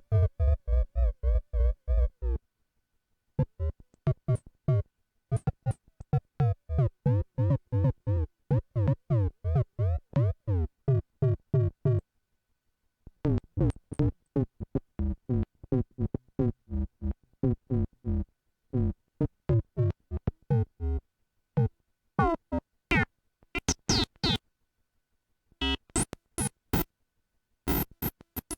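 Behringer Crave analog synthesizer playing a fast pattern of short, clipped notes, about three or four a second. The run stops for brief silent gaps a few times, and the tone brightens and darkens as it goes.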